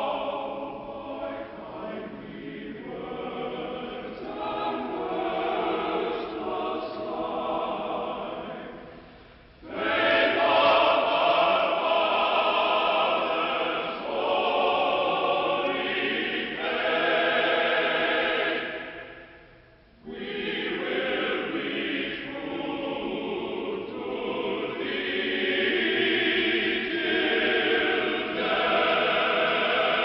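A men's military choir singing under a conductor, breaking off briefly twice, about nine and nineteen seconds in, before going on.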